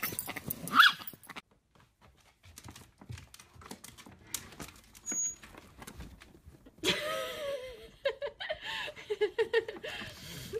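A dog's short yelps and whines in quick bursts, broken by about a second of near silence early on.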